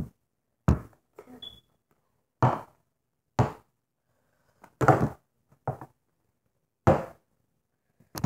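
A series of separate thumps and knocks at uneven spacing, roughly one a second, with a brief high squeak about a second and a half in.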